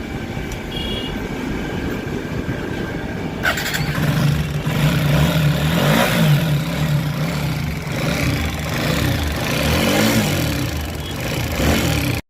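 TVS Apache RTR 160 4V single-cylinder motorcycle engine running: it idles steadily, then is revved up and let fall back twice. A click is heard a few seconds in.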